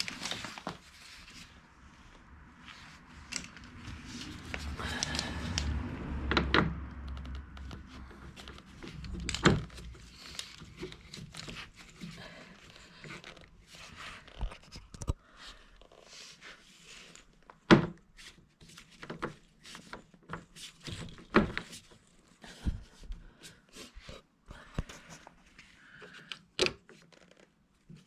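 Irregular knocks, clicks and clatter of objects being handled and set down, with a low rumble and heavier knocks around the middle of the first third.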